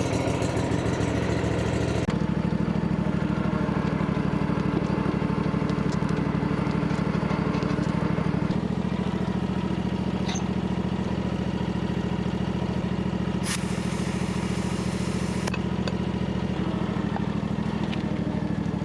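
Ferris riding mower's engine running steadily.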